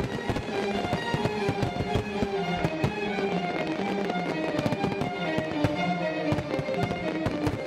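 Dense aerial fireworks bursting in quick succession, many bangs and crackles close together, over orchestral music with held string notes.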